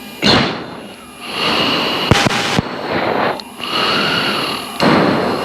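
F-16 pilot breathing forcefully into the oxygen-mask microphone while pulling G, a series of sharp rushing breaths of the anti-G straining manoeuvre, the first one sudden and loud.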